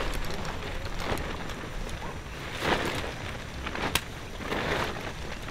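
Low wind rumble on the microphone, with a few rustling scrapes and one sharp click about four seconds in from camping gear being handled as a folding camp cot is put together.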